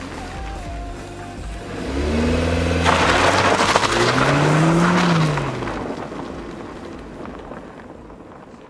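Volkswagen sedan's engine revving hard as the car spins on beach sand. The pitch climbs and then falls away about five seconds in, with a loud rush of tyres churning sand at the peak. The sound fades out near the end.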